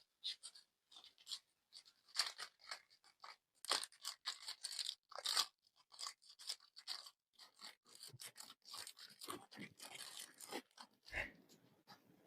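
Close-up crackles and crunches from modelling clay and its packaging being handled and opened, coming in irregular short bursts, with a low thump near the end.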